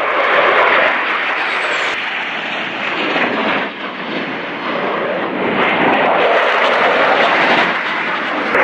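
Jet noise from the Thunderbirds' F-16 Fighting Falcons flying overhead in formation. It swells, dips briefly a little before the middle, then builds again as the jets pass.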